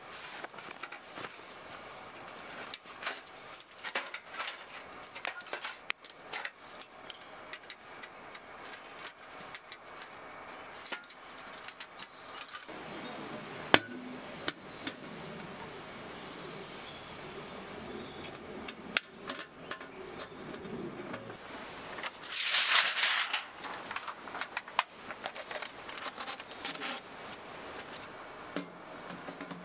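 Metal clinks, clicks and knocks of a portable sheet-metal wood stove being unpacked from its carry bag and assembled, with rustling of the bag and dry leaves. About two thirds of the way in there is a louder rasping noise lasting about a second and a half.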